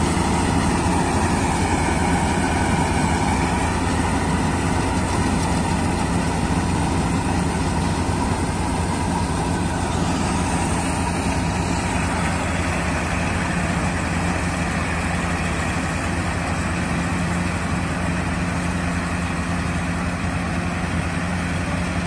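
Jaswant self-propelled combine harvester working a wheat crop, its diesel engine and threshing machinery running as a steady drone that fades slightly as it moves away.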